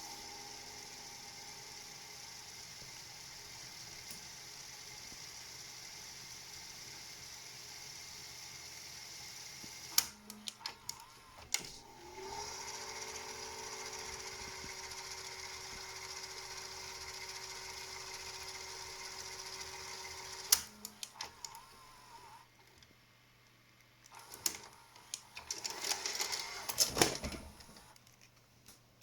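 GoldStar R-Q20P VHS video recorder's tape transport running with a steady whirr, switching modes with a cluster of sharp clicks about a third of the way in, after which the motor spins up to a higher, steady hum. More clicks follow as it stops, then a burst of mechanical clattering near the end. Its rubber drive belt is worn and no longer fully elastic, though the mechanism still works.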